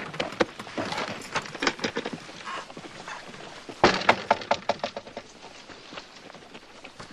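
A rapid clatter of knocks and clicks in two bursts, the second starting about four seconds in, with scattered knocks after.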